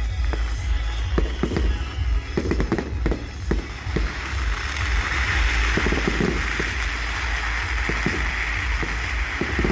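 Fireworks going off in quick succession, a string of sharp bangs and pops, giving way about halfway through to a steady hiss with fewer, scattered bangs.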